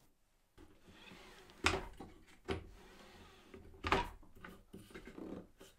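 Turntable of a Bosch GCM 18V-254 D mitre saw being swung and set by hand, clunking as it moves between its angle stops. There are three sharp knocks about a second apart, then fainter knocks near the end.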